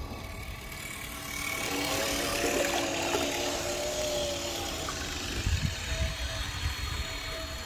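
Electric 550-size motors of a large RC model aircraft carrier whining as the hull passes close by, with the rush of water along its sides; the sound swells about a second in and eases off around five seconds in. Low rumbling bumps follow near the end.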